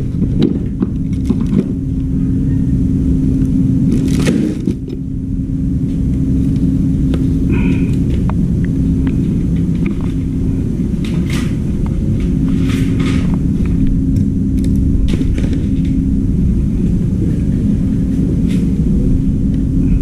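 A steady low rumble with a constant hum running through it, and scattered clicks and knocks of things being handled.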